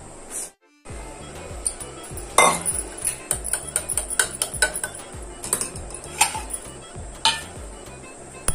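Steel kitchen utensils clinking and scraping: a spatula working poha in a kadhai, then a tea strainer knocking against a cup as tea is poured through it, a quick run of sharp clicks, over light background music. A brief silent gap about half a second in.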